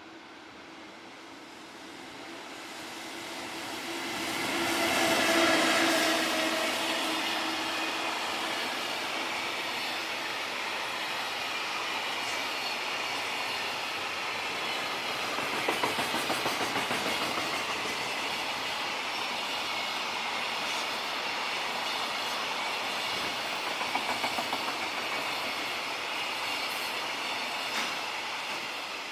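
Freight train passing close by. It grows loud over the first few seconds with a steady tone that fades out by about twelve seconds in, then a long, even rumble of wagons with groups of clacks as the wheels cross rail joints, twice.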